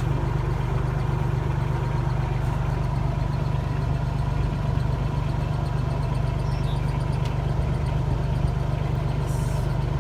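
A vehicle's engine running steadily, a constant low hum with no change in speed.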